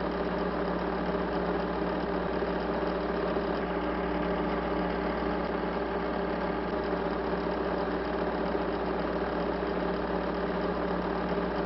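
A motor running steadily: an even mechanical hum with a few fixed tones, unchanging throughout.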